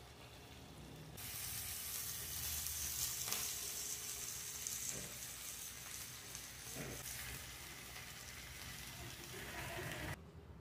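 Food frying in a hot pan: a steady sizzling hiss that starts about a second in, with a few faint knocks, and cuts off abruptly near the end.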